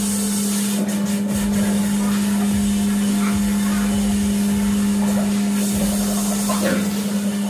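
A machine running with a steady low hum that holds one pitch throughout.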